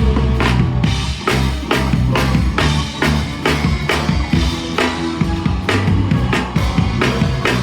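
Loud live punk rock band playing, with the drum kit to the fore: steady, regular drum hits over sustained bass and guitar notes.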